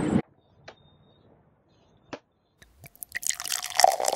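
Machete cutting open a green drinking coconut: a few single sharp chops spread over the first three seconds, then a denser, louder run of crunching cuts near the end as the top is opened.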